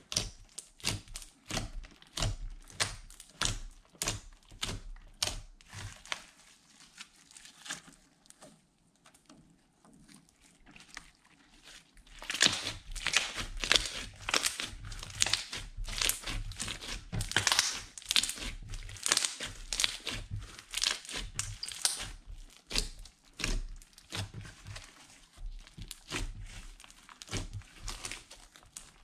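Hands kneading and squeezing a large glittery teal and purple slime, giving a rapid run of small wet pops and crackles. The pops are sparser at first, fade for a few seconds, then come thicker and louder from about twelve seconds in.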